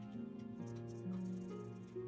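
Background music: slow, sustained notes that change pitch in steps.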